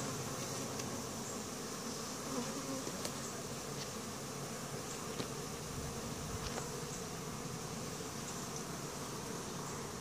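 Many honey bees buzzing in a steady drone around a crowded, opened hive, with a few faint knocks.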